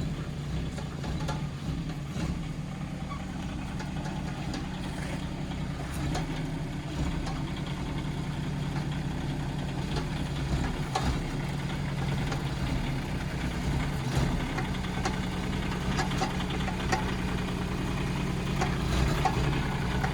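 Kubota K008-3 mini excavator's small three-cylinder diesel running steadily at low revs while the machine works, with occasional faint clicks and knocks.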